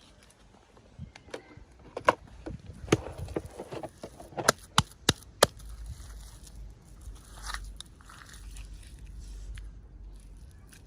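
Hands unboxing small plastic toys and packaging: a string of sharp clicks and taps, loudest in a quick cluster about four to five seconds in, then softer rustling and handling noise.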